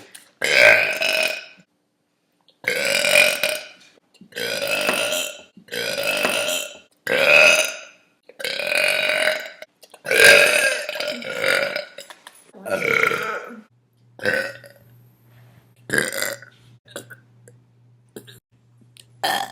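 A girl burping about nine times in a row, each burp long and drawn out at about a second, then a few short burps.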